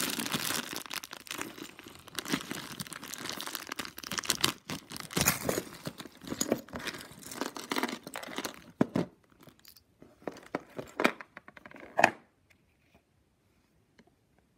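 Thin clear plastic bag being torn open and crinkled, a dense crackling rustle. It gives way to a few separate sharp clicks before going quiet near the end.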